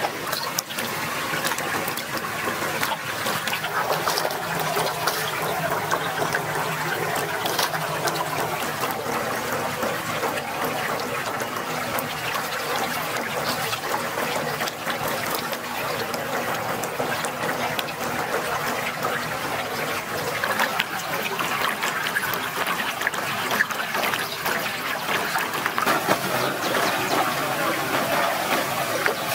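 A forest stream running steadily over rocks, with water splashing as hands are washed in it.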